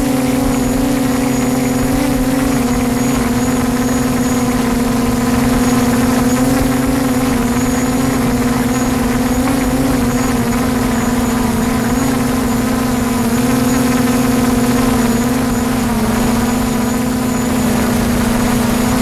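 DJI Mavic quadcopter's motors and propellers humming steadily in flight, one strong tone with higher tones above it that waver slightly in pitch.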